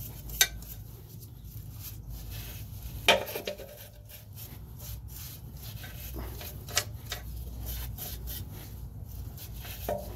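Small wire brush scratching and scrubbing over the corroded metal of a car's rear hub carrier around the ball joint, cleaning it before the worn joint is pressed out, with a few sharp clicks and taps from the brush and tools.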